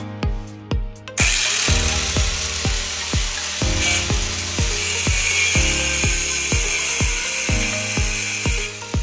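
A power tool runs steadily for about seven and a half seconds, starting about a second in and stopping near the end, over background music with a steady beat.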